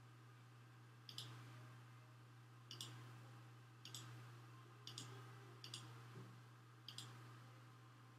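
Computer mouse button clicked about six times, irregularly about a second apart, as wire segments are placed in the schematic, over a faint steady low hum.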